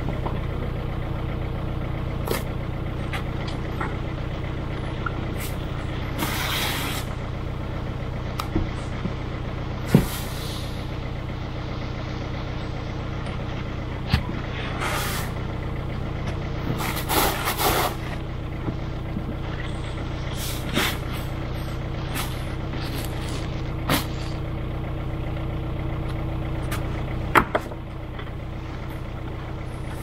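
All-terrain vehicle's engine running steadily, with several short hissing bursts and a few sharp knocks over it.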